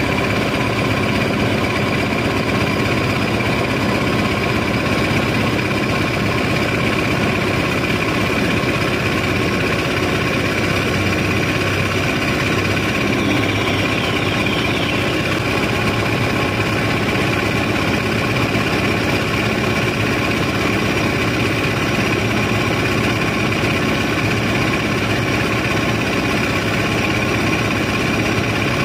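Heavy unloading machinery on a sand barge, a diesel engine running steadily with several steady whining tones over it.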